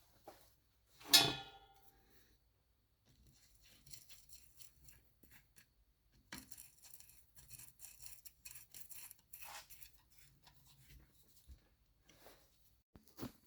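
A metal part set down or knocked with a sharp clink that rings on briefly about a second in, followed by light scraping, rustling and handling of small parts.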